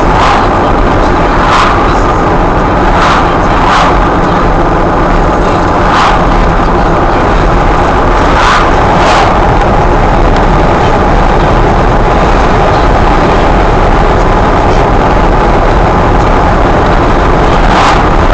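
Steady engine and road noise of a moving vehicle heard from inside its cab, with a short sharp knock or rattle every few seconds at irregular intervals.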